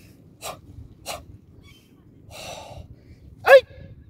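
A martial artist's forceful breathing during a Nanbudo kata: two quick sharp exhalations, a longer breath about two and a half seconds in, then a loud, short kiai shout with falling pitch near the end.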